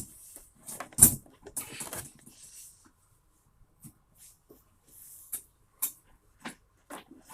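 A steel coyote foothold trap being set by hand: a loud metal clank about a second in, some rattling, then a series of lighter metallic clicks and knocks.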